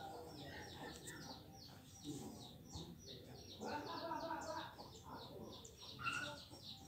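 A small bird chirping over and over, about three short falling chirps a second, with faint voices of people chatting in the background.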